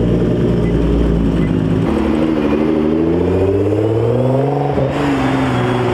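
Car engine running steadily, then accelerating with its pitch rising for nearly three seconds before dropping back sharply near the end.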